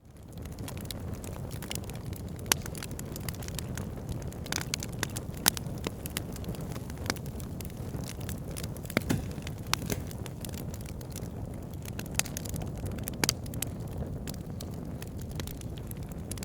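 Wood fire burning in a fireplace: a steady low rumble of flames with frequent irregular crackles and pops, a few sharper snaps standing out. The sound fades in from silence at the very start.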